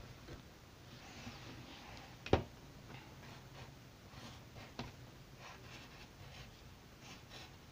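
Pencil scratching on paper in short drawing strokes. A single sharp tap about two seconds in is the loudest sound, with a fainter tap near five seconds.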